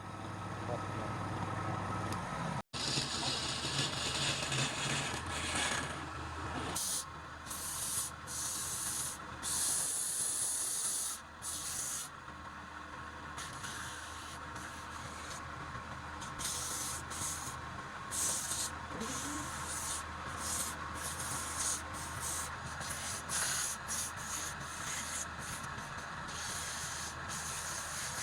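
Wood lathe running with a steady motor hum while a tool or sandpaper is held against the spinning wood, making a rough scraping hiss that comes and goes as it touches and lifts off.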